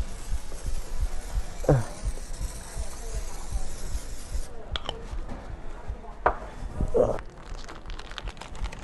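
Aerosol cooking spray hissing steadily for about four and a half seconds, then cutting off abruptly, followed by a few light knocks and clatters.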